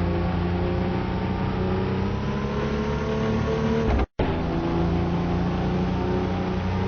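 Car engine running steadily, a low hum with several held tones over it. The sound cuts out completely for a split second about four seconds in.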